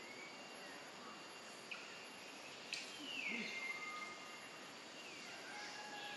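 Forest ambience: a steady hiss with a few faint whistled calls, the loudest a falling whistle about three seconds in that levels off and holds for about a second. Two short sharp clicks come before it.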